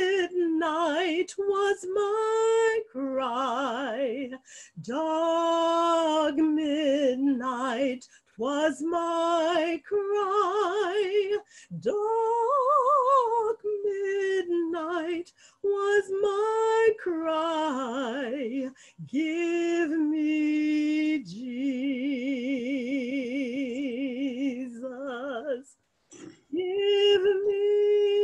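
A woman singing solo and unaccompanied, with wide vibrato on long held notes and short breaks between phrases.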